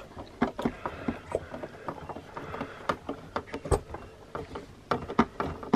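Irregular light clicks and taps of a screwdriver and screws being worked into the plastic base of a vintage AT-AT toy.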